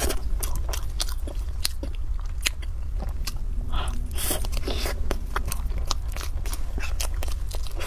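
Close-miked chewing and biting of spoonfuls of mousse cake: a steady run of small, sharp mouth clicks and crunches over a low hum.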